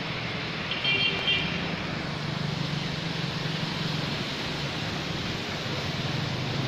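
Vehicle traffic on a flooded road: a steady low engine hum under a hiss of water and tyres, as a motorcycle rides through knee-deep floodwater. About a second in, a short vehicle horn sounds in two quick beeps.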